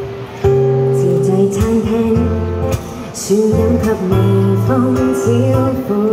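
A woman singing a pop song into a microphone to acoustic guitar accompaniment, performed live.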